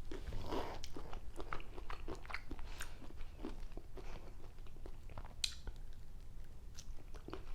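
A person chewing cocktail shrimp close to the microphone, with many small, irregular mouth clicks.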